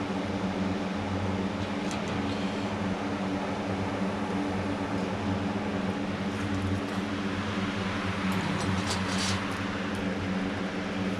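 Steady low machine hum at an even pitch, with a few faint light clicks about two seconds in and again near the end.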